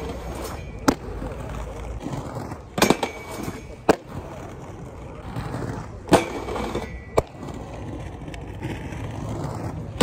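USD aggressive inline skates rolling over concrete paving, with sharp clacks as the skater lands on, grinds along and drops off a metal flat bar, several times over.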